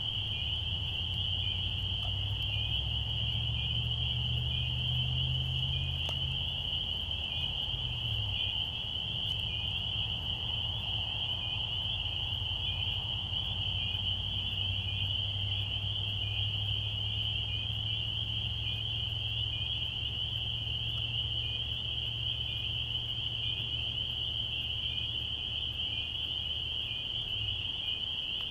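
A dense chorus of frogs calling steadily from the swamp, a continuous high-pitched trilling din. Beneath it runs a low droning hum that shifts a few seconds in and drops away near the end.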